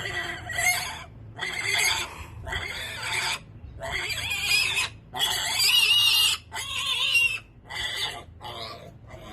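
A farm animal calling loudly over and over, about ten short calls in a row, each under a second long with brief gaps between.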